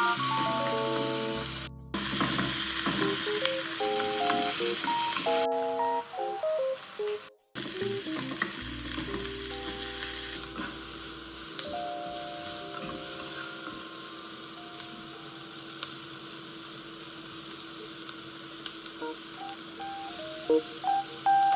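Food sizzling as it fries in a pan, under background music picking out a simple melody. The sound drops out briefly twice, about two and seven seconds in.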